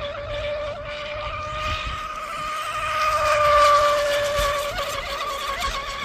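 Electric RC rigger race boat on a 4516 propeller running flat out: a steady high motor-and-prop whine that swells as the boat passes closest about three and a half seconds in, then falls slightly in pitch as it moves away.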